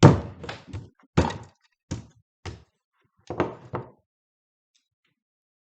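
Sharp knocks and thuds on the hard plastic case of a Kobalt 80 V Max battery as it is forced apart, about eight blows in quick succession, the first the loudest, stopping about four seconds in.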